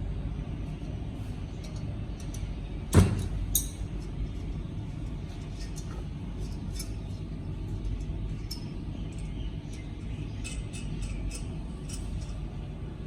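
Car-repair work on a VAZ 2107 cylinder head: a steady low rumble with one sharp metallic knock about three seconds in and scattered light clinks of metal tools.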